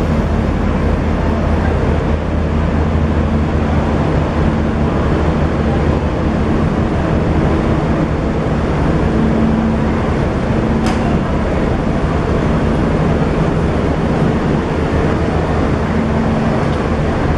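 Steady running of a standing diesel train's engines at the platform, with a single short click about eleven seconds in.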